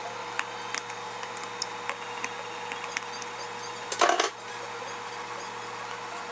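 Metal potato masher pressing and tapping soft cooked food on a silicone baby plate: scattered small clicks, with one louder clunk about four seconds in, over a faint steady hum.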